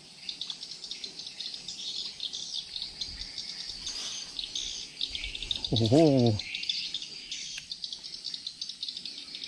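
Dense, rapid chirping of insects and birds, with a short burst of a man's voice about six seconds in.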